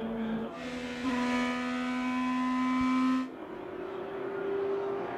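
IndyCar racing engines, 2.2-litre twin-turbo V6s, at full speed on a race broadcast, holding a steady high engine note. From about one to three seconds in it grows louder and brighter with a rushing hiss, then drops back and settles on a higher steady note.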